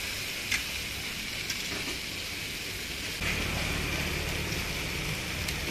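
Meat cutlets and patties sizzling on a flat-top griddle, a steady crackling hiss, with two sharp metal clicks in the first two seconds. A low rumble of traffic comes in about three seconds in.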